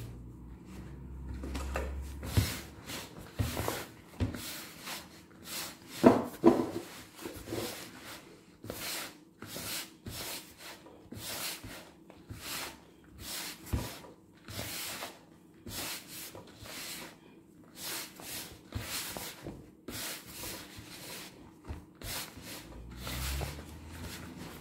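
Dough for meat pie (flour, butter and eggs) being mixed in a bowl: a long run of irregular rubbing and scraping strokes, one or two a second, a little louder about six seconds in.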